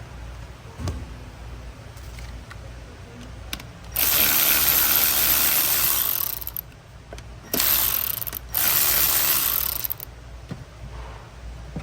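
A power ratchet run in three bursts, the first about two seconds long and two shorter ones near the end, spinning out bolts as a part is removed from the engine bay.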